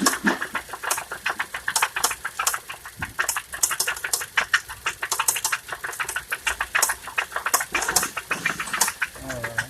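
2013 Ford Focus engine running at idle with a rapid, uneven knocking, many knocks a second, the sign of a failing engine.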